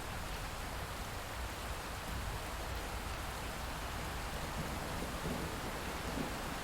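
Steady rain falling, an even hiss, with a low rumble coming in near the end.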